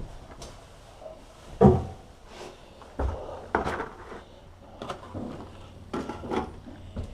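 A run of separate knocks and bumps of household objects being handled, about seven in all, the loudest a thud about one and a half seconds in.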